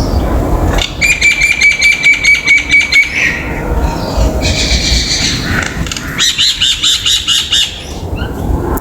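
Common myna calling: two bouts of fast, rapidly repeated chattering notes, the first about a second in lasting some two seconds, the second, higher, about six seconds in, with a shorter call between them.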